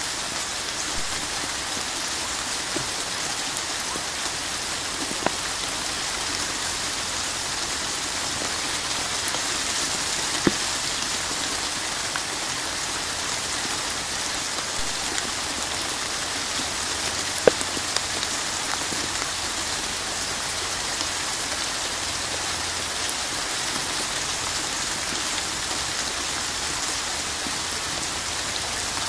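Steady rain falling, an even dense hiss of drops, with a few louder single drops ticking out now and then.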